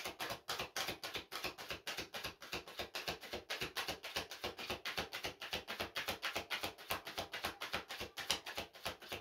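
Oracle card deck being shuffled overhand by hand: a rapid, even run of card-on-card clicks, several a second.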